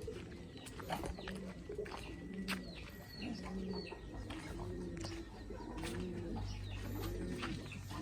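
Domestic pigeons cooing, a low coo repeating about once a second, with scattered high chirps and clicks over it.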